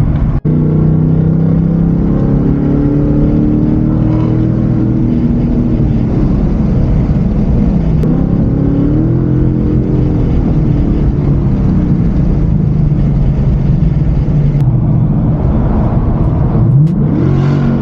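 Car engine heard from inside the cabin while cruising on a freeway, a steady note whose pitch dips and rises again a couple of times as the throttle eases and comes back on. Near the end the pitch falls and then climbs steeply as the car accelerates.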